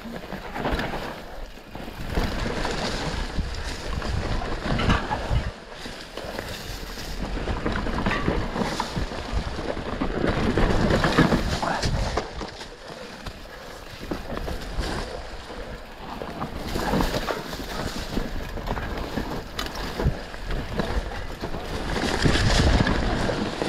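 Mountain bike riding down a leaf-covered dirt trail: tyres rolling over dry leaves and dirt and the bike rattling over bumps, with wind rushing over the camera microphone.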